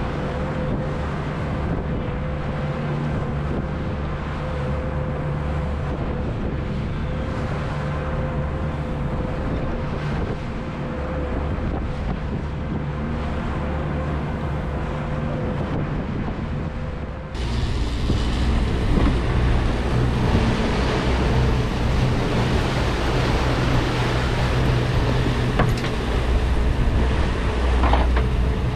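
Fishing boat's engine running steadily under way, with wind buffeting the microphone. About 17 seconds in there is a sudden cut to a louder stretch of engine, wind and water noise.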